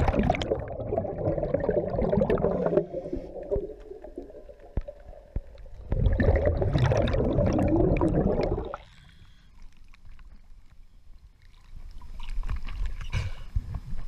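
Scuba regulator exhaust bubbling underwater as the diver breathes out: two long exhalations, the second starting about six seconds in, with quieter gaps between. Near the end the diver surfaces and water sloshes at the microphone.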